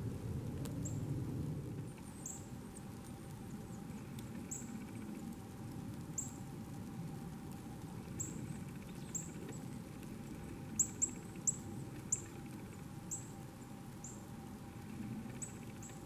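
Small songbirds giving high, thin, short down-slurred call notes, a dozen or more at irregular intervals, the loudest in a quick run of four about two-thirds of the way through. A low, steady rushing noise runs underneath.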